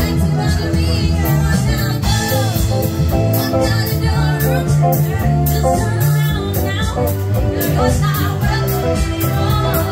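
Live rock band playing: a woman singing into a microphone over electric guitars, keyboard and drums with a steady beat.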